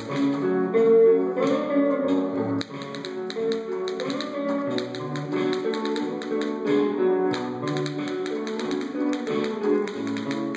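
Recorded music with a bouncy melodic line, overlaid with rapid, sharp clicking taps that sound like typewriter keys or tap-shoe strikes.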